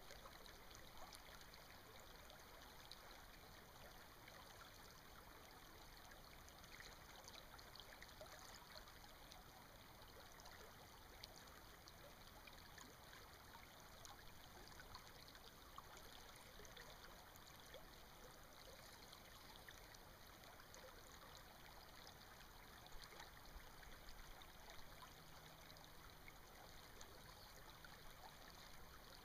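Small stream running over rocks, a faint steady trickle of water.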